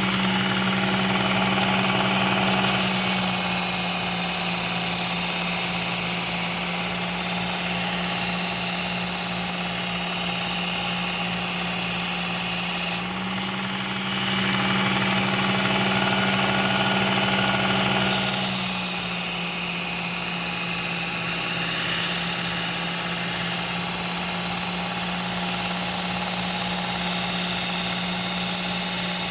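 Work Sharp Ken Onion belt sharpener running with a steady motor hum while a machete edge is ground on a 120-grit Cubitron belt to apex it. The grinding hiss stops for about five seconds partway through, as the blade comes off the belt, then starts again.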